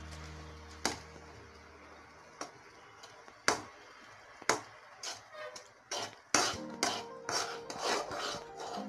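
Metal spatula knocking and scraping against a metal kadai while stirring boiling instant noodles: scattered clinks at first, coming thick and fast near the end.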